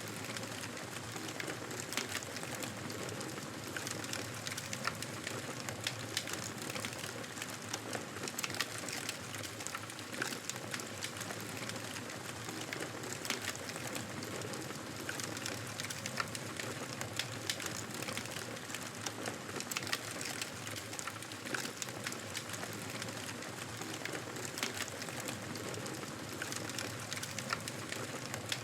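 Wood fire crackling in a fireplace: a steady hiss with frequent sharp pops and snaps.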